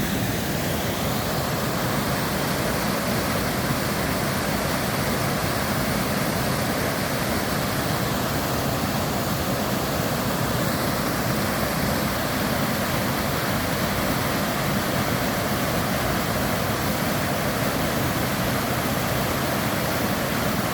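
Steady rush of falling water from a mountain waterfall or stream, an even, unbroken roar with no changes.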